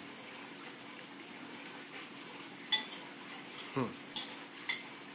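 Metal spoon clinking against a ceramic bowl as a toddler stirs and scoops his food: quiet at first, then four or five light clinks in the second half.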